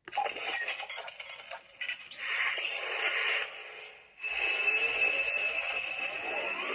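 Armor Hero Emperor transformation belt toy playing its electronic transformation sound effect through its small speaker: it starts suddenly with crackly, noisy effects, then from about four seconds in a steady high tone joined by rising sweeps.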